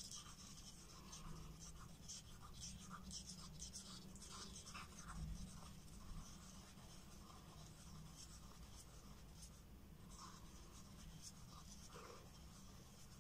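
Near silence: a low steady hum with faint scraping and light taps of a stick stirring resin in a plastic cup.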